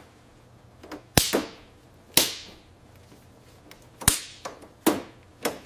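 Wiring harness clamps snapping shut as cable bundles are pressed into them: about five sharp snaps, irregularly spaced, each with a short ringing tail.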